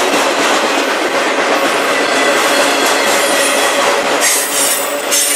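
Freight train's autorack cars rolling past close by: steady wheel-on-rail noise and clatter, with a faint thin squeal over it that grows brighter and higher near the end.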